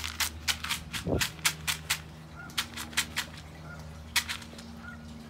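Rapid sharp clicks and taps, about four or five a second, thinning out to a few scattered ones after about two seconds, with a dull thump about a second in.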